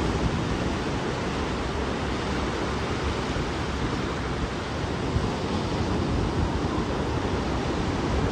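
Ocean surf breaking and washing up a sandy beach: a steady rushing noise with no let-up.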